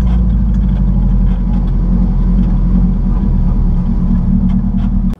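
Subaru-engined VW Beetle driving slowly, heard from inside the cabin: a loud, steady low engine drone with road noise.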